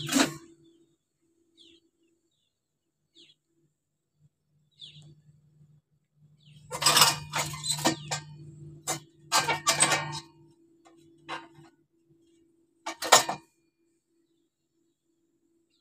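Scattered sharp clinks and knocks in two bunches, one starting about six and a half seconds in and lasting some four seconds, and a brief one near the end, with a few faint high chirps before them and a faint low hum underneath.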